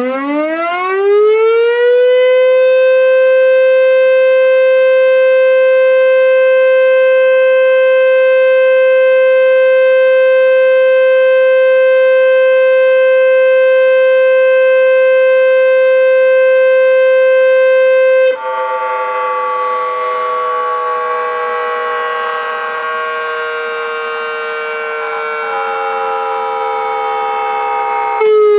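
Takihata Dam's warning siren winding up, its pitch rising over the first two seconds, then holding one steady tone for about sixteen seconds before winding down with its pitch slowly falling. It warns that the river's water level may rise sharply.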